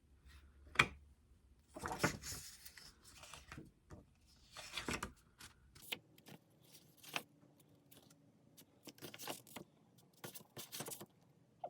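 Paper and card album inserts being handled: short rustles and scattered small clicks and taps, with two brief louder rustles about two and five seconds in.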